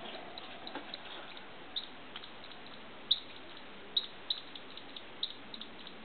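Small, irregular wet clicks and smacks from a squirrel's mouth as it sucks, over a steady hiss, with two louder clicks about three and four seconds in.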